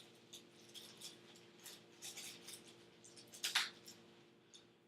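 Faint small clicks and scrapes of plastic parts handled with gloved hands: a digital X-ray sensor in a protective sleeve slid into the blue anterior bite block of a Rinn holder. One louder scrape comes about three and a half seconds in, over a faint steady hum.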